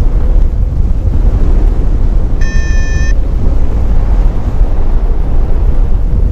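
Wind buffeting the camera microphone of a paraglider in flight, a loud steady low rumble. About two and a half seconds in, a single electronic beep at one fixed pitch sounds for under a second.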